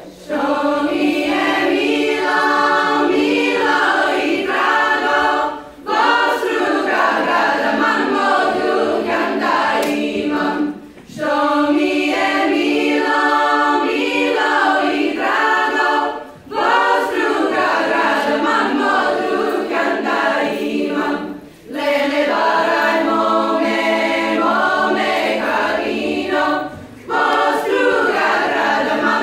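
Women's folk choir singing a Macedonian folk song a cappella, starting just after the opening, in phrases of about five seconds with short breaths between them and a low note held beneath the tune.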